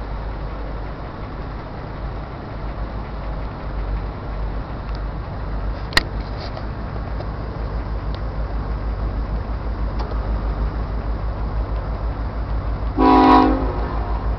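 A diesel freight locomotive approaches slowly with a steady low rumble that pulses faster as it nears. About a second before the end it gives a short blast of its multi-tone air horn. A single sharp click sounds about six seconds in.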